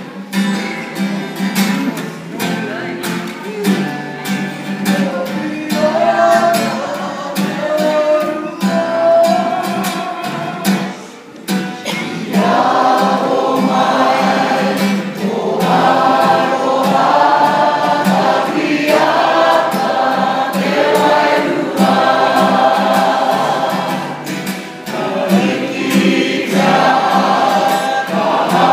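Kapa haka group of women, men and children singing a waiata together. The singing grows fuller and louder about twelve seconds in.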